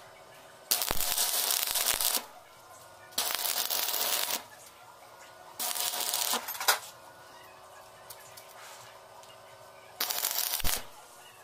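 Stick-welding arc crackling in four short runs, each about a second or a little more, as a steel pin is tack-welded onto a steel block. Each run starts and stops abruptly, and the last is the shortest.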